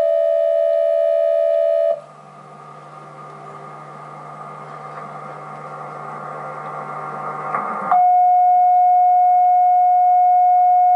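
Emergency broadcast alert tones: a steady two-tone alert signal until about two seconds in, then a quieter droning sound that grows steadily louder, then about eight seconds in a single loud, steady tone, the weather radio alert tone.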